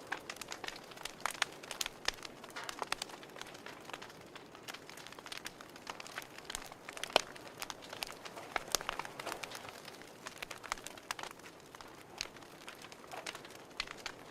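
Fireplace crackling: irregular sharp pops and snaps over a soft steady hiss, the loudest pop about seven seconds in.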